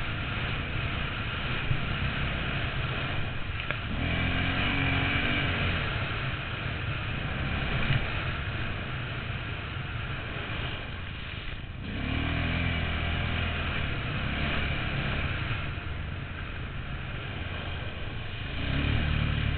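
Honda Rincon ATV's single-cylinder four-stroke engine running under way, speeding up about four seconds in, easing off briefly around eleven seconds, then pulling harder again.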